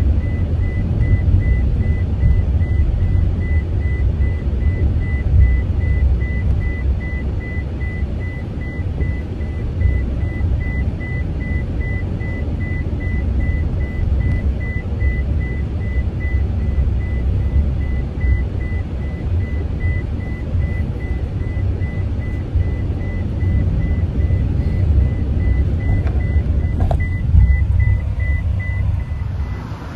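Van cabin interior while driving: a steady low rumble of engine and road noise. Over it, a high, rapidly repeating electronic beep, a vehicle warning chime, which stops near the end.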